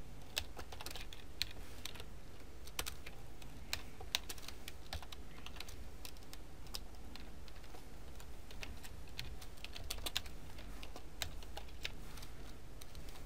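Typing on a computer keyboard: irregular keystrokes, some in quick runs and some spaced out.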